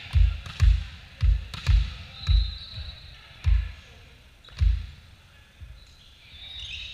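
A run of seven dull, deep thumps on a hardwood gym floor during a volleyball rally, about two a second at first and then more spaced out, dying away after about five seconds. A brief high squeak comes in the middle.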